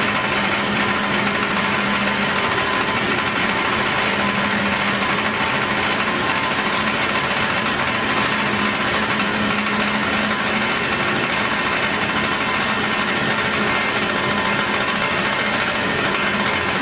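Hyd-Mech S-20A horizontal band saw running steadily, its blade sawing through a steel tube clamped in the vise, with a steady motor hum under the hiss of the cut.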